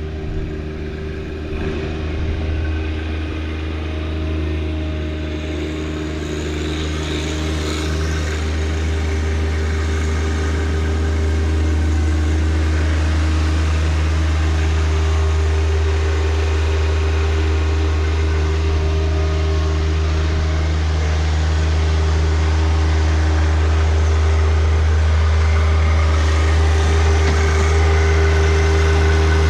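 John Deere 1025R compact tractor's three-cylinder diesel engine running steadily at a constant speed, slowly getting a little louder.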